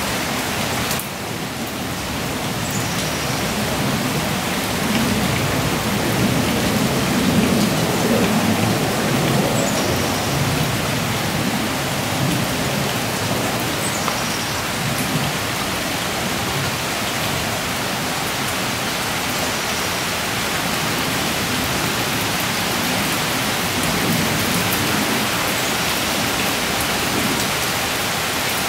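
Heavy rain falling steadily in a thunderstorm, with a low rumble of thunder swelling about five seconds in and again near the end.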